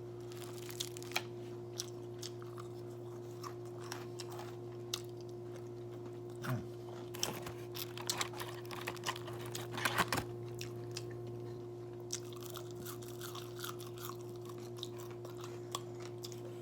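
A person chewing and crunching on crunchy Cheetos-coated popcorn chicken nuggets, with scattered crisp crunches close to the microphone, over a steady low hum.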